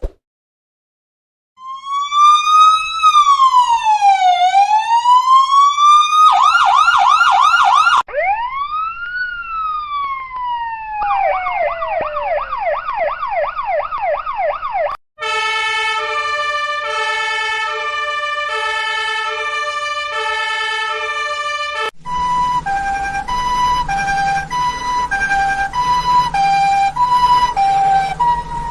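A run of electronic emergency-vehicle sirens, one after another. After a short silence comes a slow wail rising and falling, then a fast yelp, a second wail and yelp, and finally two-tone sirens switching back and forth between a high and a low note.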